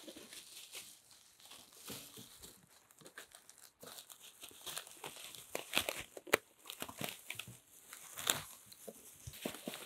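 Thin clear plastic bag crinkling and rustling in irregular bursts as a tractor seat is pulled out of it, busier from about four seconds in.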